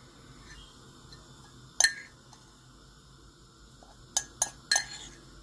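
A metal teaspoon clinking against a ceramic mug while scooping crushed dried nettles: one sharp clink about two seconds in, then three quick clinks near the end.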